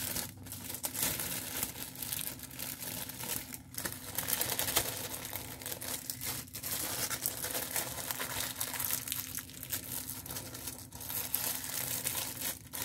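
Clear plastic wrapping crinkling and rustling as it is handled and turned over, steadily with a few brief pauses.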